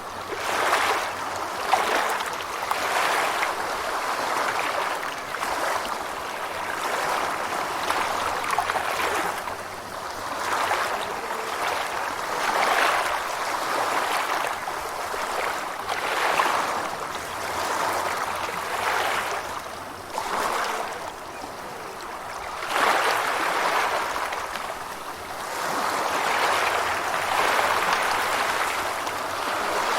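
Gentle ocean waves washing onto a shore, a steady rush of water that swells and eases every two to three seconds.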